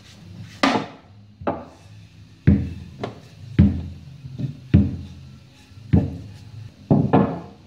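Wooden rolling pin rolling out sweet pastry dough on a silicone mat, with a sharp wooden knock about once a second as each stroke starts.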